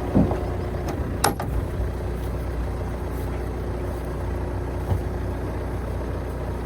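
Diesel engine of heavy equipment running steadily at low revs, with a sharp click about a second in.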